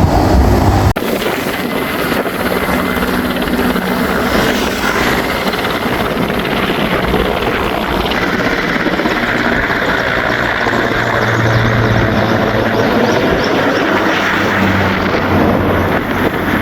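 Firefighting helicopter flying, its rotor and engine making a steady, loud noise.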